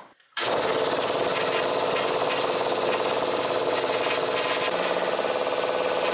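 Rebuilt air compressor switching on abruptly about half a second in and then running steadily: a Vevor electric motor drives a Harbor Freight 2 HP V-style single-stage cast-iron pump by V-belt, pumping air into the tank.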